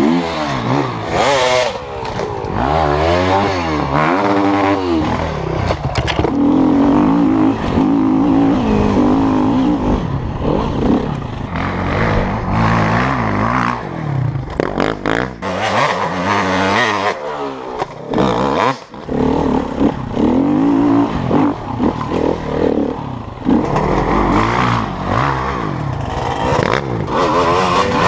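Enduro dirt bike engines revving hard, rising and falling again and again as riders jump and climb, with scattered knocks and clatter.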